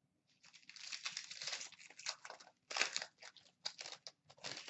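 Foil wrapper of an Upper Deck Trilogy hockey card pack crinkling and tearing as it is opened by hand, in a run of irregular crackles.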